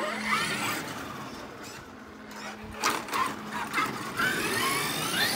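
Traxxas X-Maxx electric RC monster truck's brushless motor whining up and down in pitch as it is throttled, with tyre noise on concrete and a sharp knock about three seconds in.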